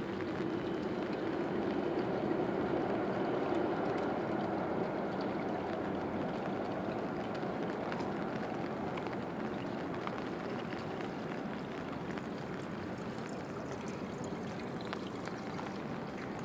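Steady watery hiss of a rain-soaked city street, rain and running water together. It swells in the first few seconds and then slowly eases, with a few faint ticks of drips.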